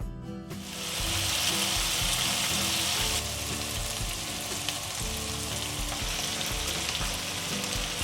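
Food frying in hot oil in a pan: a sizzle starts about half a second in and eases a little after about three seconds.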